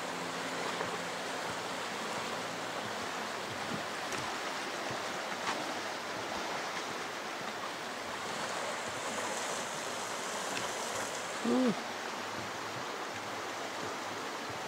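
Snow-fed river flowing beneath a suspension footbridge: a steady rush of water. A single short pitched squeak sounds about two-thirds of the way through.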